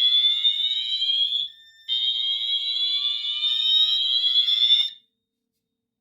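Wheelock fire alarm sounding its whoop tone: a high, slowly rising sweep that repeats after a short break. It cuts off abruptly about five seconds in, when the system is silenced.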